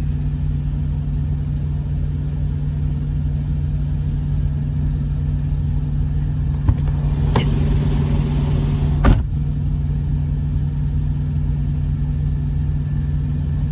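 Steady low drone of a diesel running in a parked semi truck's cab. Over it come a soft tap, a short rustle, and about nine seconds in a sharp smack as a hand swats at a fly.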